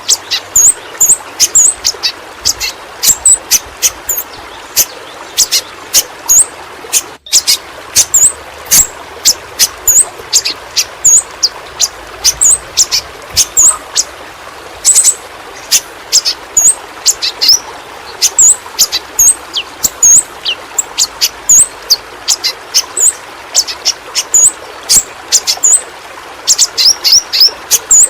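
Pentis pelangi (yellow-rumped flowerpecker) calling continuously: rapid, very short, high-pitched ticks and hooked chirps, several a second, over a steady background hiss, with a brief gap about seven seconds in.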